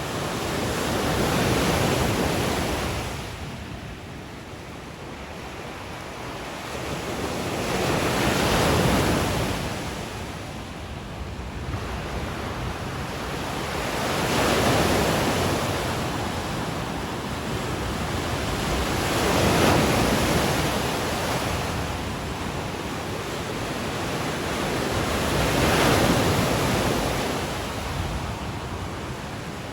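Lake Michigan waves breaking and washing up on a sandy beach, one surge about every five or six seconds, with light wind on the microphone.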